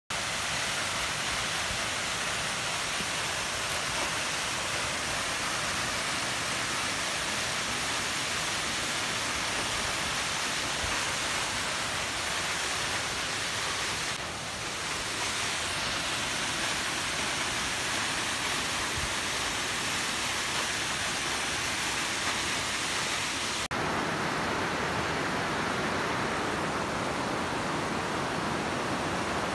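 Steady rushing of a mountain waterfall pouring down a rock face. The hiss changes abruptly about two-thirds of the way through, turning a little duller.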